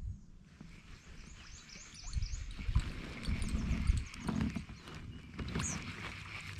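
Low knocks and sloshing around a kayak on the water, loudest in the middle stretch.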